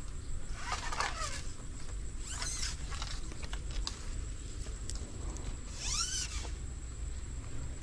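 An animal calling three times, short cries that rise and fall in pitch, over a steady low rumble.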